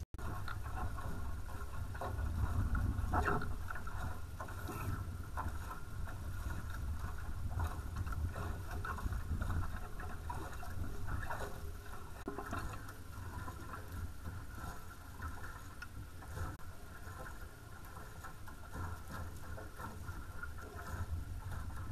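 Water rushing and splashing along the hulls of a small sailing catamaran under way at about 7 knots, with many small irregular splashes. Wind buffets the camera microphone as a steady low rumble.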